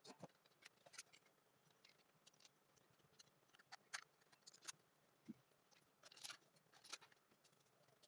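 Faint, irregular clicks and snaps of small hand tools and parts being handled, a dozen or so scattered sharp ticks with no steady rhythm.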